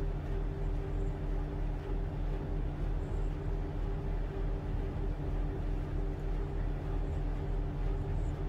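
Tugboat's diesel engines running steadily while towing a barge: a constant low drone with a throb that pulses about three times a second.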